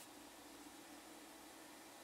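Near silence: a faint steady hiss with a low hum underneath. The paint spray gun is not triggered.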